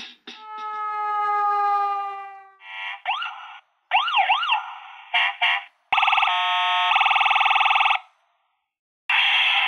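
Toy ambulance's electronic siren sound effects: a wailing siren that rises and falls, then a fast pulsing tone for about two seconds, a brief pause, and the wail again near the end. It opens with a sliding tone falling in pitch.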